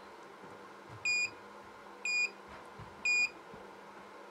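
Trimble CFX-750 GPS display beeping three times, about a second apart, short high-pitched beeps, each one confirming a press on a touchscreen calibration target.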